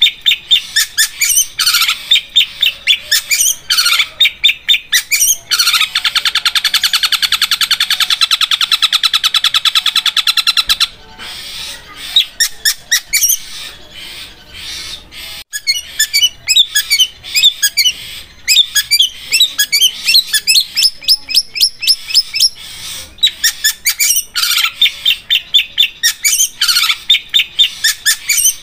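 Long-tailed shrike singing loudly in runs of sharp, rapidly repeated chirps. A few seconds in, a fast, even trill like a sewing machine lasts about five seconds. After a softer passage in the middle, quick varied notes return.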